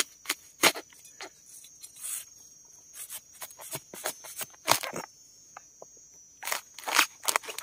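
Wild sang bamboo shoots being broken off the clump: a run of sharp, irregular cracks and snaps. A steady high insect buzz runs behind them.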